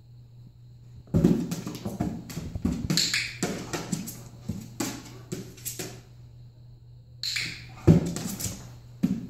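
A dog's paws and claws knocking and scraping on an upturned hollow plastic tub as it steps on and shifts about, an irregular run of taps from about a second in, pausing around six seconds and starting again shortly after seven. A low steady hum runs underneath.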